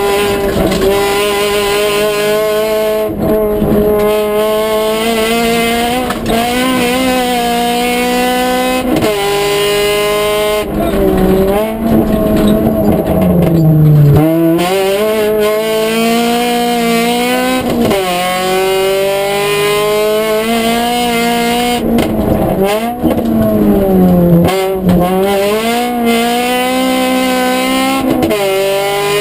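Honda Civic rally car's engine heard from inside the cabin at stage pace: the revs climb again and again, dropping sharply at each gearshift. Twice, about a third and three quarters of the way in, the revs fall away through downshifts under braking and then the engine pulls hard again.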